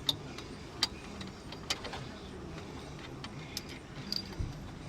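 Scattered light metallic clinks and clicks of hand tools and bolts being handled, about half a dozen separate ticks over a low steady background.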